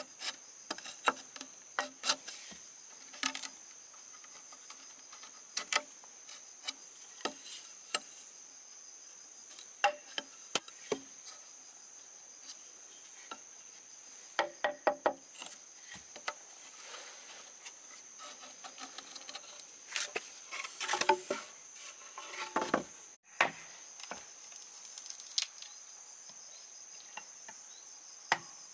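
Steady high-pitched drone of insects, with scattered sharp knocks and taps; a quick run of knocks comes about two-thirds of the way through.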